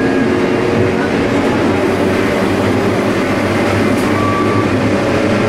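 Electric rack railway car of the Montreux–Glion–Rochers-de-Naye line running along the track, heard from inside the cab: a steady rumbling run with a constant motor hum, and a brief higher tone about four seconds in.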